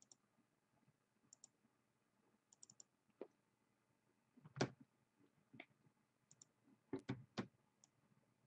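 Faint, scattered clicks of a computer mouse and keyboard over near silence: light paired ticks now and then, a few sharper single clicks, and a quick run of three clicks about seven seconds in.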